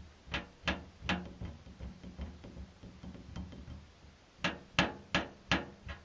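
A series of sharp knocks and taps as a small gutted largemouth bass is handled and scraped clean of belly fat on a stainless steel sink. There are three knocks in the first second, then a quicker run of about six or seven, roughly three a second, starting after about four seconds.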